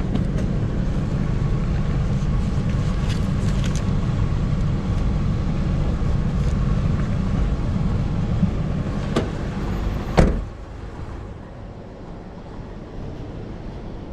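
Steady road and engine rumble of a car being driven, heard from inside. About nine seconds in there is a faint click, then a second later a sharp thud, after which the rumble stops and it goes quieter.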